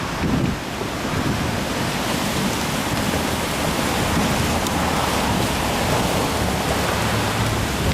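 A river in flood rushing fast and steadily, with wind buffeting the microphone.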